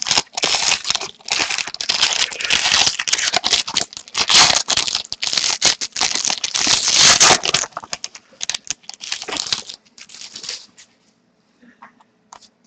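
A trading card pack wrapper being crinkled and torn open by hand, with a struggle to get it open. Steady crinkling for about eight seconds, then scattered rustles that die away after about eleven seconds.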